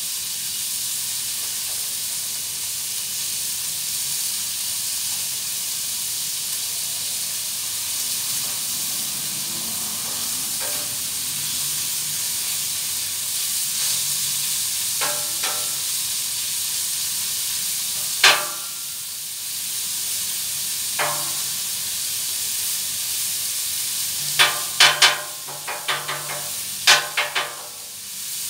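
Bacon and chorizo sizzling steadily on a steel flat-top griddle. A metal spatula scrapes and clinks against the griddle plate a few times, in a quick cluster of strokes near the end.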